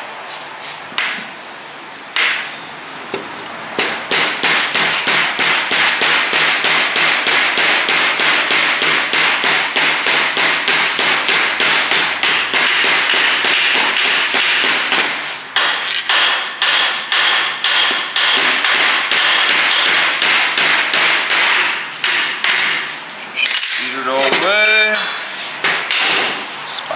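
A mallet tapping a new pin into a Dana 30 differential carrier: sharp metal taps in a fast, steady run that stops and restarts a few times near the end.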